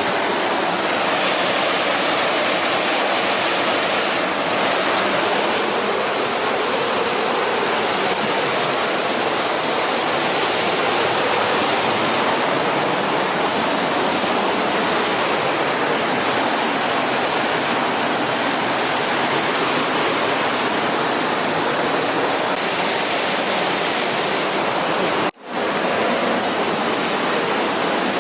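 Flowing water rushing steadily, broken once by a split-second dropout near the end.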